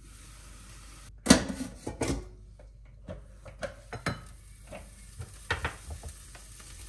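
Kitchen clatter as browned lamb liver is lifted out with a spatula and set on a plate: a sharp clack about a second in, then scattered lighter knocks and clicks of utensil on crockery.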